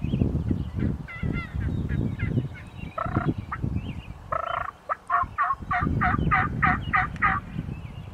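Wild turkey calling: two short, rough calls, then a quick run of about ten yelping notes, some four a second. A low rumbling noise lies underneath.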